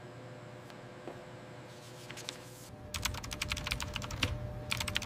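Rapid typing on a computer keyboard, a quick run of key clicks that starts about three seconds in, over a low hum.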